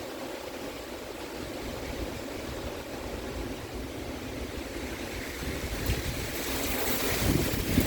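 Storm wind and heavy rain, with the wind buffeting the phone's microphone as a low rumble. A stronger gust builds from about five seconds in, bringing a louder rushing hiss near the end.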